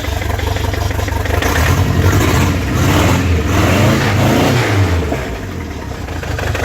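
Toyota 22R-TE turbocharged four-cylinder engine idling, blipped up and down a few times in the middle before settling back to idle. It is misfiring on number 2 cylinder: that plug lead sparks, but pulling it makes no change to the running, so the cylinder is dead.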